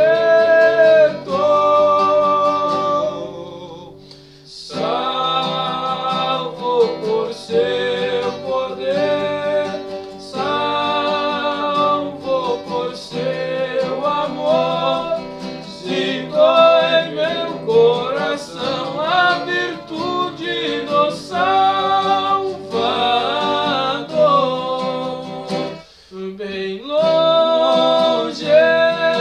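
Two men singing a hymn together to a strummed acoustic guitar, with short breaks between phrases about four seconds in and again near the end.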